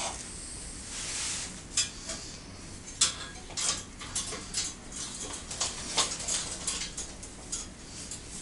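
Steel chain-link mesh and its tension bar clinking and rattling against a steel fence post and tension band as they are handled into place: irregular metal clicks and knocks, the sharpest about three and six seconds in.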